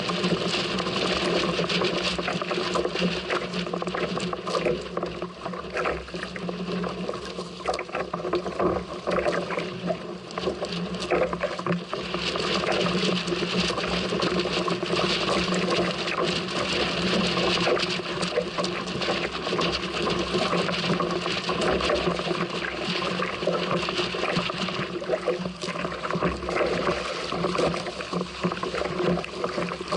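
Water rushing and splashing along a small sailing craft's hull as it sails fast in strong wind, with wind buffeting the microphone and a steady hum underneath.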